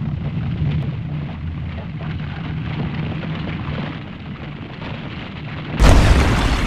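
Deep, steady monster-movie rumble with a crackling texture, then about six seconds in a sudden loud blast like an eruption: the sound effect of a giant creature bursting up out of desert sand in a cloud of dust.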